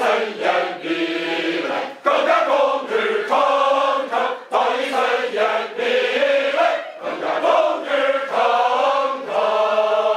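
Background music with a singing voice holding long notes that step up and down in pitch.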